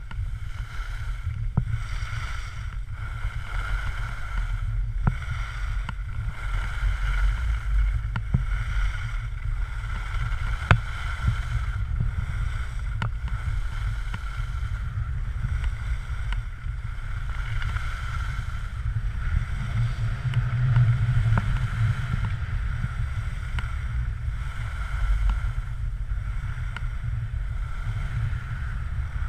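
Wind buffeting an action camera's microphone as a skier moves downhill, a steady low rumble, with the hiss and scrape of skis sliding on groomed snow.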